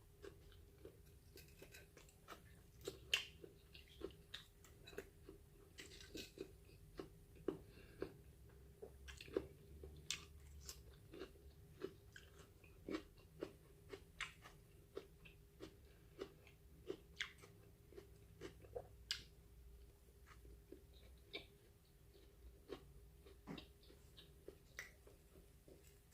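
A person chewing and biting food close to the microphone: irregular soft crunches and wet clicks, about one or two a second.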